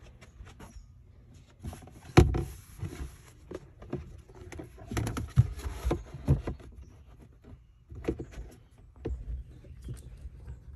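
Knocks, bumps and scraping of a battery box being handled and tried in place inside a boat's battery compartment, with the loudest knock about two seconds in.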